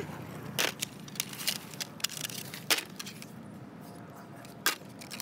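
Scattered sharp clicks and clinks of small hard objects being handled, a few separate knocks with the loudest about halfway through and near the end.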